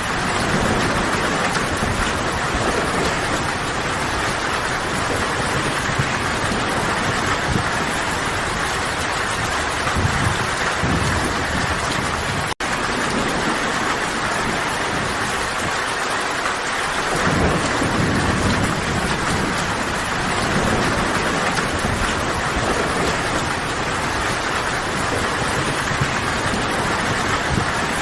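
Steady rain falling, with low rumbles of thunder twice. The sound cuts out for an instant about halfway through.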